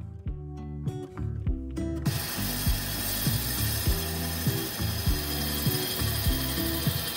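A gouge cutting a spinning ash bowl blank on a wood lathe: a steady coarse hiss that starts about two seconds in, over background music with a steady beat.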